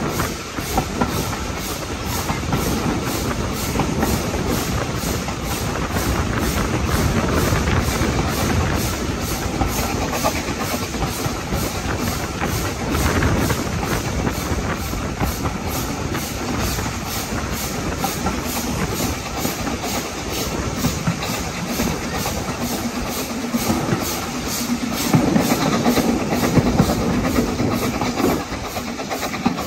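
BR Standard Class 4MT No. 75078, a two-cylinder 4-6-0 steam locomotive, working hard up a steep gradient, heard from a carriage window: a steady, even rhythm of exhaust beats over the rumble and clatter of the coach wheels on the rails. It gets louder for a few seconds near the end.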